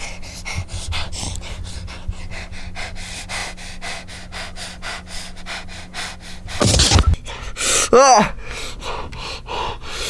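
A man breathing hard in quick, rhythmic gasps, about five a second, as if in distress. About seven seconds in comes a loud rough burst, followed by a short pained cry that falls in pitch.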